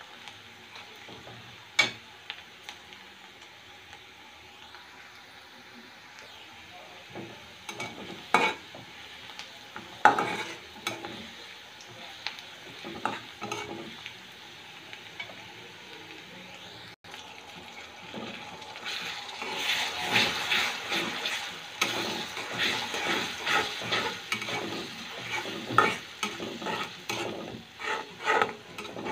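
Sliced onions sizzling in hot oil in a wok, stirred with a metal spatula that scrapes and clicks against the pan. About two-thirds of the way through, the sizzling and scraping grow louder and busier.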